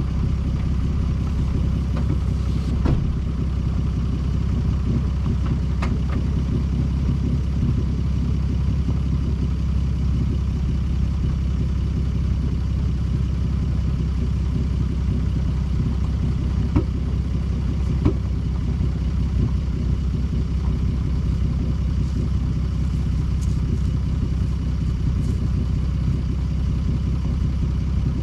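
Off-road 4x4 vehicle engine idling steadily at an even pitch, with a few faint clicks or knocks now and then.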